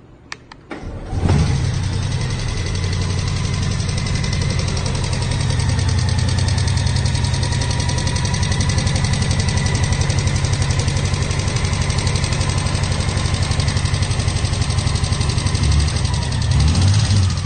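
2018 Honda Goldwing GL1800's flat-six engine starting about a second in, then idling with a pretty noticeable rapid clicking from the right side of the engine. The dealer traced the noise to a valve whose shim broke or came loose, letting the valve strike a spark plug. This is a catastrophic failure at about 2,300 miles.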